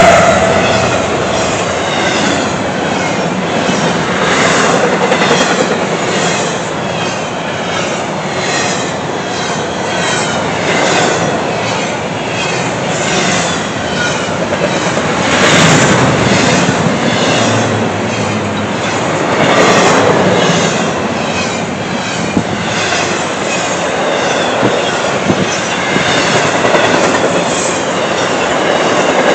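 Intermodal freight train cars rolling past at speed: steel wheels clattering over the rail in a steady repeating rhythm, with some wheel squeal.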